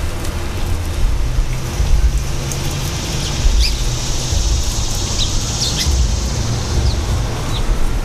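Small birds at a seed feeder giving short, high chirps, several of them, mostly in the second half, over a louder, steady low rumble and a high hiss.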